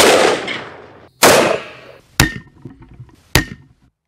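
Four handgun shots about a second apart. The first two ring on with long echoing tails; the last two are sharper and die away faster.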